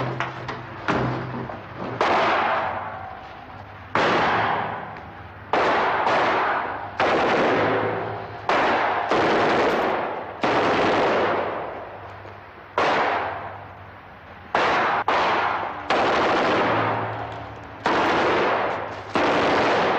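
Gunfire from a pistol and a submachine gun: repeated shots, about one every one to two seconds, each with a long echoing decay.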